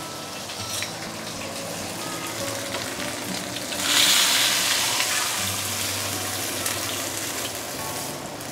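Oil sizzling under a whole snapper frying on a banana leaf in a wok, the hiss swelling sharply about four seconds in as a metal spatula lifts and shifts the fish and leaf, then settling back.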